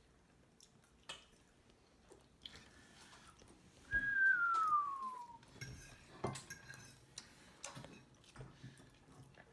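Cutlery and plates clinking lightly in scattered taps during a meal at the table. About four seconds in, a single high note slides down in pitch for a second or so, the loudest sound here.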